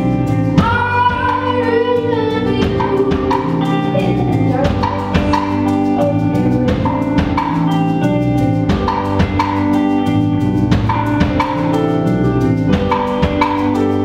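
Live band playing a song: women singing over electric guitar, bass guitar, keyboard and a drum kit keeping a steady beat.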